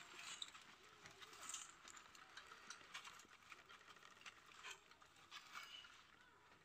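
Near silence: faint room tone with a few soft ticks and rustles.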